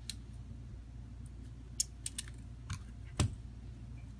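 Scattered small clicks and taps of a smartphone's display and a plastic pry pick being handled as the screen is lifted off the frame. The loudest, duller knock comes about three seconds in. A steady low hum lies underneath.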